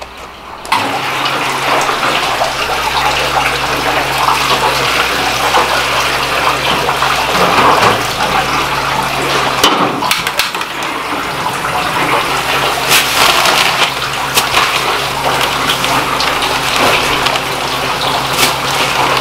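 Water at a rolling boil in pots on a gas range, a steady rushing noise over a low hum that starts suddenly about a second in, with a few short metal clinks.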